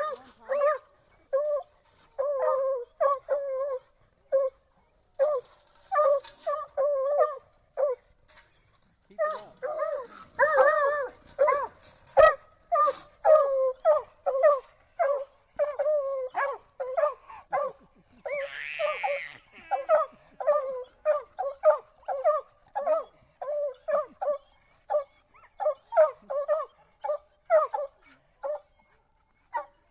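Redbone and bluetick coonhounds barking in a rapid run of short, choppy barks and yips, about two to three a second, at a caged raccoon, with two short pauses in the first eight seconds. A brief rasping noise cuts in about two-thirds of the way through.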